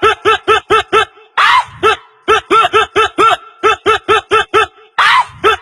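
Rapid high-pitched laughter in quick, even pulses of about four a second, broken twice by a short rising-and-falling squeal.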